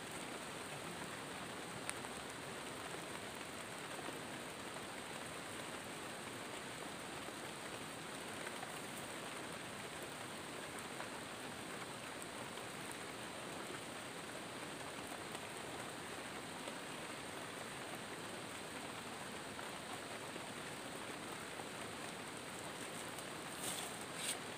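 Steady, even hiss like rain falling, with a thin high steady tone over it and a few soft clicks near the end.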